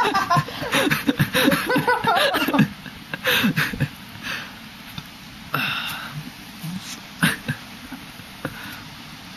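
People chuckling and murmuring for the first two or three seconds, then a steady low background broken by a few short sniffs or clicks.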